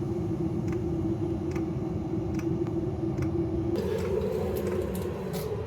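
Planar 2 kW diesel heater running with its burner lit, a steady fan hum with faint ticks about once a second, typical of the fuel dosing pump. The hum changes pitch about four seconds in.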